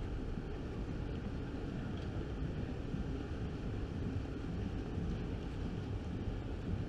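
City street ambience: a steady rumble of road traffic mixed with wind buffeting the microphone.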